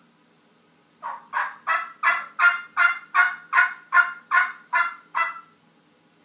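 Turkey call sounding a run of about twelve short yelps, roughly three a second, starting about a second in and stopping about a second before the end. It imitates a hen turkey's yelping, meant to get a gobbler to answer.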